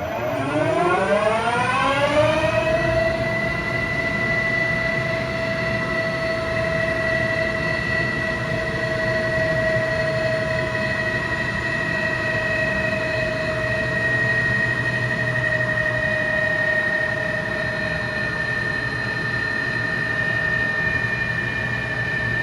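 Lehigh MR-3040 alloy-wheel CNC lathe spindle spinning the wheel up to speed. It gives a rising whine over the first two or three seconds, then runs at a steady, high whine.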